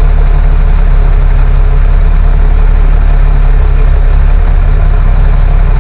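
Heavy truck diesel engine idling steadily and loudly, with a low, even rumble and no change in speed.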